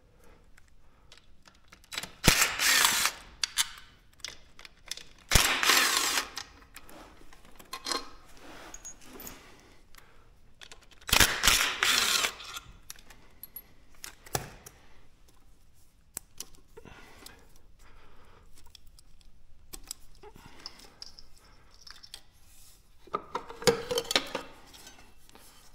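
Power drill running in three short bursts of about a second each, spinning bolts in or out during a stator swap on a Chinese ATV engine, with smaller clinks and handling noises in between.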